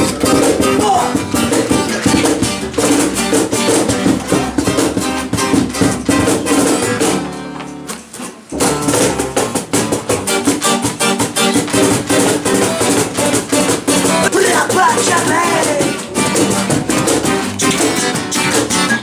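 Live acoustic band with strummed guitar playing an upbeat ska song, stopping for a moment about eight seconds in before it picks up again.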